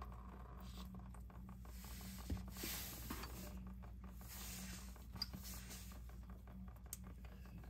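Faint patter and small ticks of automatic transmission fluid dribbling out of the ZF 8-speed transmission's fill hole into a drain pan, the sign that the transmission has been filled up to the fill-hole level.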